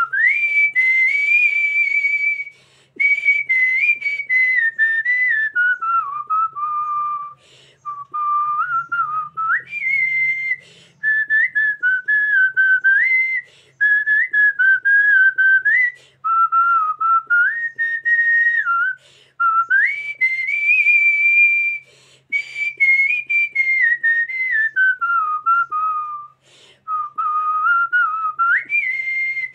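A woman whistling a song through pursed lips: a clear single-note melody that steps and glides up and down, in phrases with short pauses between them.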